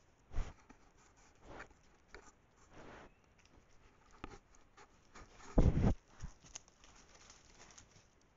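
Elk moving right at a trail camera: scattered soft footfalls and rustles of brush and hide close to the microphone, with one louder, heavier thud-and-rustle about five and a half seconds in as an animal brushes or bumps the camera.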